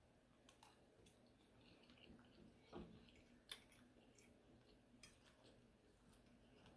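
Near silence with faint eating sounds: soft mouth clicks and chewing, with small clicks a little under 3 seconds in and at about 3.5 seconds.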